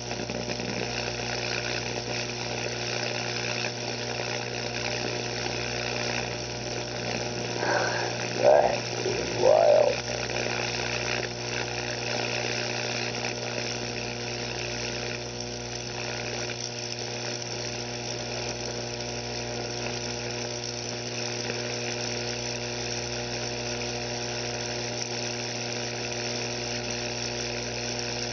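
High-voltage arc at 15,000 volts burning steadily where the electrodes enter a raw egg: a continuous electrical buzz and sizzle with a steady hum underneath, the current shorting through the leaked egg goo. A few brief voice sounds come about eight to ten seconds in.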